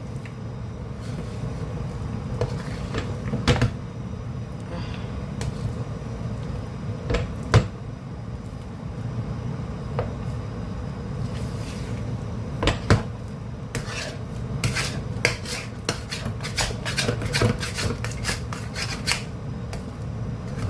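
A stirring utensil knocking and scraping against a cooking pot while working a thick, sticky rice-and-coconut-milk mixture. Irregular single knocks give way to a quicker run of clicks about two-thirds of the way through, over a steady low hum.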